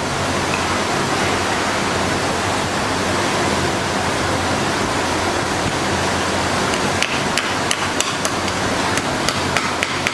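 A quick series of sharp metallic clicks and taps from about seven seconds in, from hand work on a stainless steel Mac 3 laryngoscope blade while its lamp housing is fitted. Under it runs a loud, steady rushing noise with a low hum.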